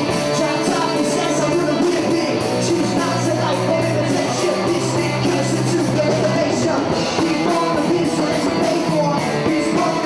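Rock song with a singer, electric guitar and a steady drum beat.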